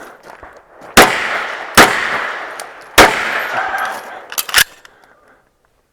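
Pistol shots fired on an IDPA stage: three loud shots about a second apart, each with a ringing echo, then two quieter cracks in quick succession.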